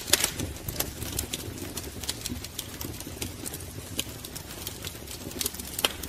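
Wood fire crackling: irregular sharp pops and snaps over a steady low rumble, with a louder pop right at the start and another near the end.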